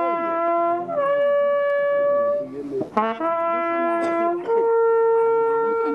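Coiled brass hunting horn blowing a hunting signal: four long held notes, low, then higher, then low again, then a middle note, each entered with a quick upward slur.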